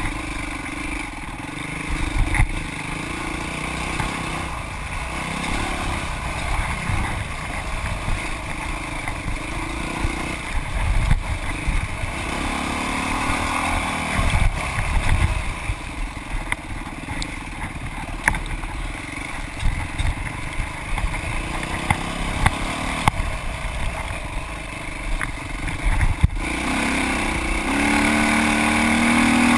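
Dirt bike engine under way, revving up and down as the throttle is worked, heard from a camera mounted on the bike, with occasional sharp knocks. Near the end the engine pulls harder and steadier, and the sound grows louder.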